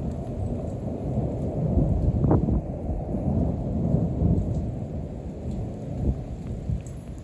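Rolling thunder from a close multicell thunderstorm, a deep rumble that swells about two seconds in and again around four seconds, then eases off toward the end.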